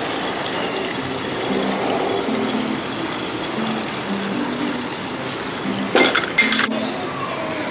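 Light background music over a steady rushing noise; about six seconds in, a brief loud clatter in two quick parts as a hand knocks the battery-operated wooden Thomas toy engine on the concrete ledge.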